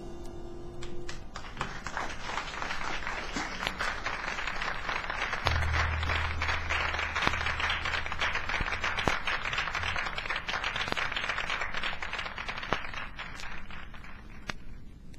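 Audience applause on a live jazz recording as a tune ends: the band's last notes fade in the first second, then clapping swells and dies away near the end. A low note sounds briefly in the middle.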